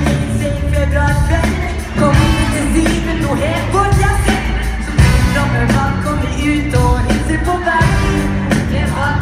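Live pop song sung by a boy duo over a loud band backing, recorded from the crowd in an arena; the vocal line is sung lower than the original, with a changed note.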